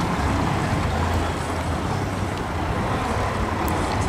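Steady low rumble of a boat's inboard engine running slowly while it manoeuvres, with wind noise on the microphone.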